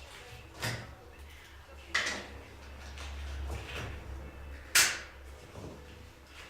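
A few sharp knocks and clatters of tools and containers being handled and set down, three of them, the loudest about five seconds in, with a low rumble between.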